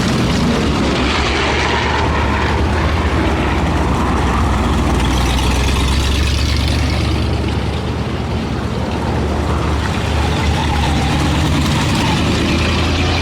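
WW2 Universal Carriers with Ford V8 engines running in a column, engines rumbling steadily with the clatter of steel tracks on gravel.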